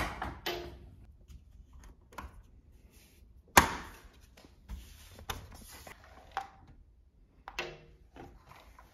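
A faux wood window blind's headrail being pushed back into its mounting brackets: one sharp knock about three and a half seconds in, with scattered lighter knocks and slat clacks before and after it.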